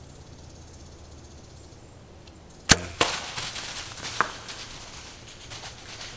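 A bow shot at a deer: a sharp crack from the bow string about two and a half seconds in, a second crack a third of a second later as the arrow hits the buck, then a second or two of rustling and crashing as the deer runs off through the brush.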